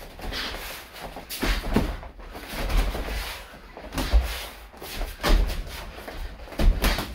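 Irregular thuds and scuffs of kickboxing sparring: gloved punches and shin-guarded kicks landing and feet moving on padded floor mats. A cluster of hits comes near the end.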